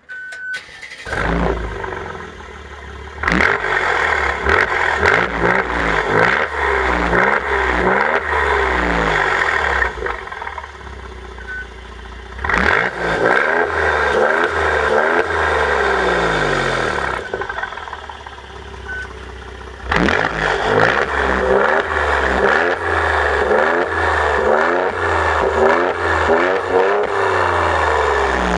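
Mercedes-AMG C 43's twin-turbo V6, fitted with a Brabus valve-controlled sports exhaust, starts up about a second in and settles to idle. It is then blipped again and again in three long bouts of quick revs, each rise and fall of pitch following fast on the last, with idle between the bouts.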